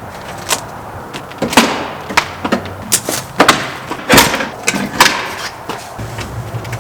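Wooden trim being pried and knocked off an old door frame: an irregular series of sharp knocks and cracks, the loudest about a second and a half and about four seconds in.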